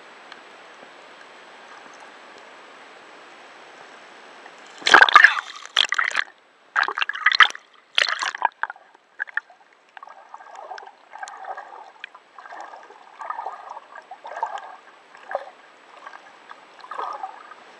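Water gurgling and sloshing, heard through an underwater camera: a faint steady hiss, then a cluster of loud splashing bursts about five seconds in, then softer gurgles that keep recurring.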